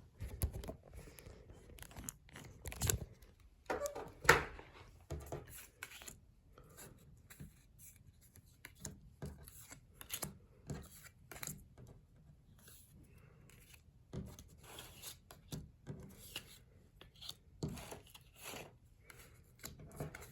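Pokémon trading cards being handled: irregular short rustles, taps and scrapes.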